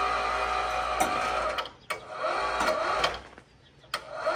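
Electric hoist motor on a ladder crane lifting an air-conditioner condenser, running in short bursts: it runs for about a second and a half, stops, runs again for about a second, stops, and starts once more near the end, with a click at each stop and start.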